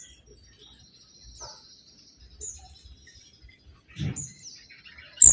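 Faint, scattered short high chirps and falling whistled notes from birds, over a thin steady high tone. Near the end a loud sharp call starts suddenly.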